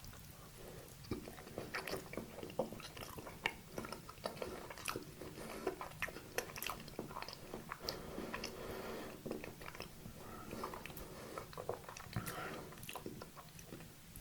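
Close-miked eating of a dessert: biting and chewing, with many sharp, irregular wet mouth clicks that start about a second in.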